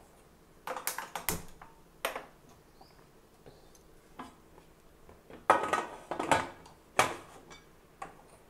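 Aluminium Prestige Deluxe pressure cooker and its lid being handled and fitted shut: a run of sharp metal clicks and knocks, the loudest cluster a little past halfway.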